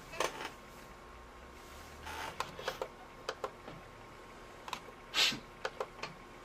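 Sharp plastic clicks from a Compaq Presario 2100 laptop's touchpad buttons and keys, about ten of them in small scattered groups, the loudest about five seconds in.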